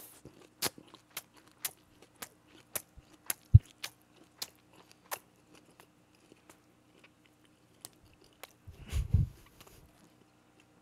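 Close-miked chewing of a mouthful of grilled spicy pork wrapped in a perilla leaf with rice: wet mouth clicks, frequent for the first five seconds and sparser after. A short low muffled sound comes about nine seconds in.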